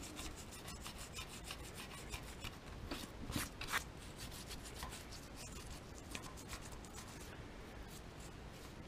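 Faint handling noises: scattered small clicks and rubbing scrapes, with two louder scrapes a little over three seconds in.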